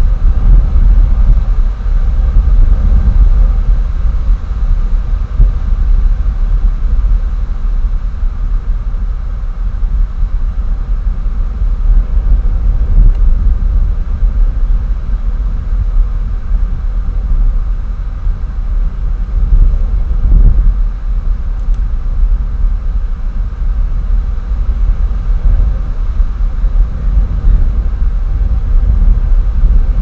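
Loud, gusty low rumble of wind buffeting an outdoor nest-camera microphone, rising and falling continuously.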